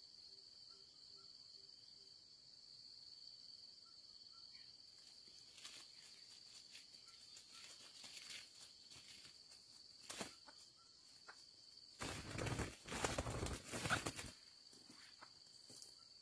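Steady high-pitched trilling of insects, with a few faint short chirps. About twelve seconds in, a loud burst of rustling lasts roughly two seconds.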